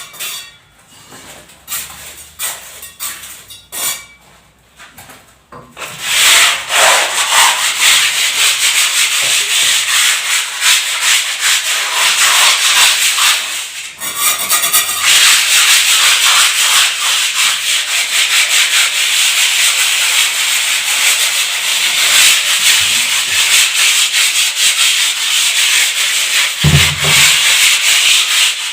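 Rapid rubbing strokes of sanding on a building surface: a few separate strokes at first, then continuous, loud scraping from about six seconds in, with a short break midway.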